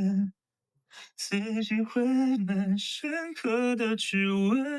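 A person singing a short unaccompanied tune, holding each note steady before stepping to the next, starting about a second in after a brief dead gap.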